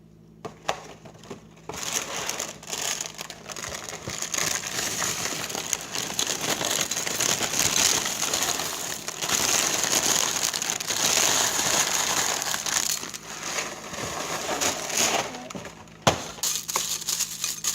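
A plastic cereal-bag liner of Frosted Flakes crinkling and rustling as it is handled and the flakes are shaken out, for over ten seconds, with a sharp knock near the end.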